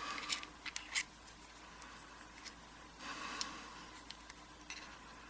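Small steel springs and pins from a dismantled lock cylinder being picked out and set down: light metallic clicks and scrapes, with two sharper ticks about a third of a second and a second in, and a brief scrape a little past three seconds.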